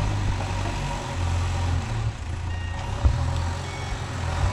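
A vehicle engine running with a steady low rumble, with a single sharp knock about three seconds in.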